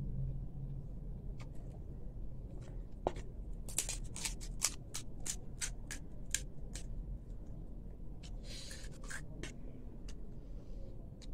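Crisp panipuri (puri) shell crackling as fingers break it open: a quick run of about a dozen sharp crackles a few seconds in, then a short crunchy rustle a little later.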